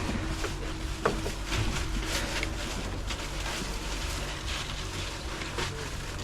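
An engine running steadily with a low hum, with scattered small clicks and knocks over it.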